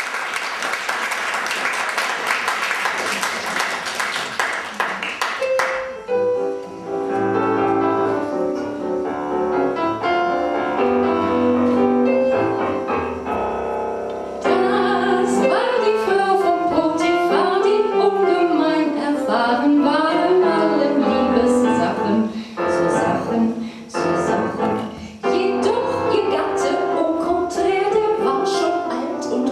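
Audience applause dying away about five seconds in, then a solo piano introduction, and from about halfway a woman singing a cabaret song to piano accompaniment.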